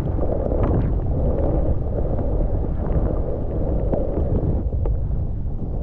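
Wind rushing over the microphone of a skier's camera during a powder run: a steady low rumble with a few faint clicks.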